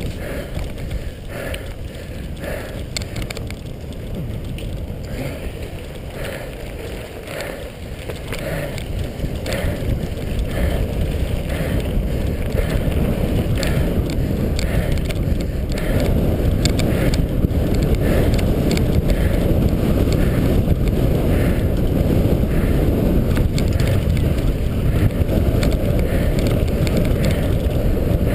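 Cyclocross bicycle ridden fast over grass and dirt: a steady low rumble of tyres on rough ground mixed with wind on the microphone, with scattered clicks and rattles from the bike. The rumble grows louder about a third of the way in.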